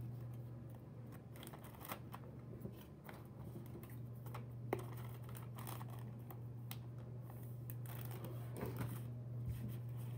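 Laminated picture cards being gathered and slid into a clear plastic bag: scattered light clicks, taps and plastic crinkling, over a steady low hum.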